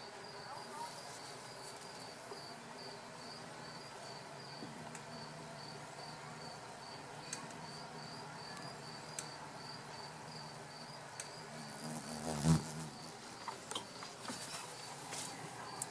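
An insect, likely a cricket, chirping faintly and steadily in a high pitch, about three chirps a second, over a low background hum. About twelve seconds in there is one brief louder low rumble.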